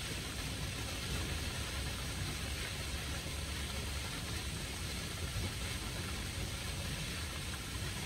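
Water falling down a stone water-wall feature and splashing into a swimming pool, an even steady hiss, over a steady low rumble.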